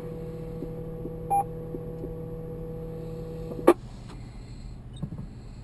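Amateur radio receiver with an open carrier between transmissions: a steady hum and tone, a short beep about a second in, then a sharp click as the carrier drops, leaving a fainter hiss.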